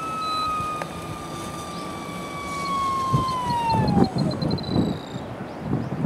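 Electric motor and rotor of a JR SuperVoyager 500 RC helicopter whining on the pad. The pitch sinks slowly, then drops away steeply after about three seconds as the head winds down. Gusty low rushing sounds come around the four-second mark.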